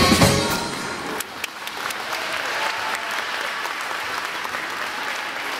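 Performance music ends about half a second in, then an audience claps steadily.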